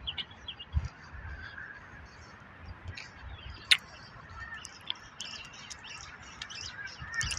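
Small birds chirping in short, high calls scattered throughout, over a light outdoor hiss. There is one sharp click a little under four seconds in.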